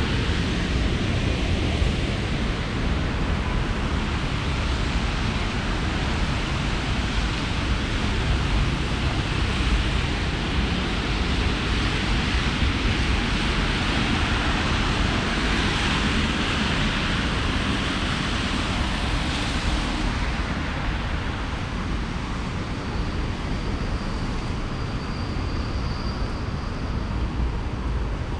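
Steady rainy city-street noise: the hiss of rain and traffic on wet roads, with a low rumble. The hiss swells for a few seconds around the middle.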